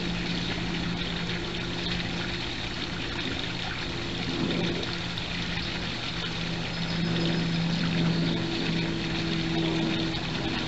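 Steady trickle of water from a backyard pond under a low motor hum that wavers slightly in pitch.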